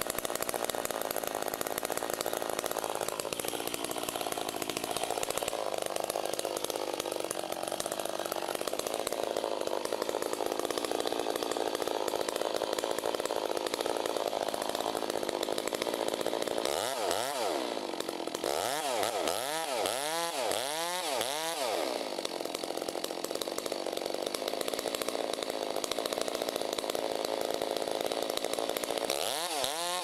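Two-stroke chainsaw cutting into a very large tree trunk, running steadily under load. About two-thirds of the way through the engine revs up and down about five times in quick succession, and it revs up sharply again right at the end.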